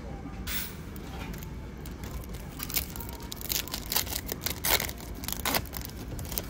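Foil Pokémon card booster pack wrapper crinkling and tearing as hands pull it open, in a run of sharp crackles in the second half.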